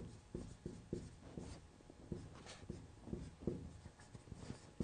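Chalk writing on a chalkboard: a faint run of short, irregular scratches and taps as a word is written stroke by stroke.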